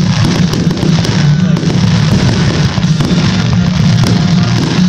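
Fireworks display: aerial shells bursting in quick succession, a loud, unbroken run of bangs and crackling.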